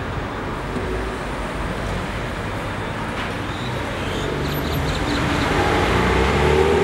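Steady street noise with a low rumble like passing traffic. Background voices come in and the noise grows a little louder in the last couple of seconds.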